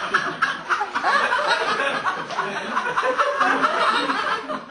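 Theatre audience laughing, many voices overlapping, dying down near the end.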